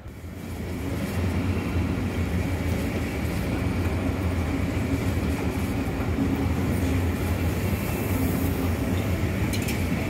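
Two electric trains passing below at once, a Hamburg S-Bahn train and a double-deck regional train: a steady rolling rumble with a low hum that builds over the first second. A few sharp clicks near the end.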